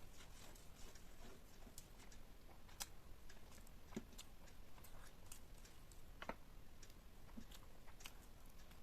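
Faint, irregular clicks and small mouth sounds of close-miked eating and chewing, a few sharper clicks standing out among them.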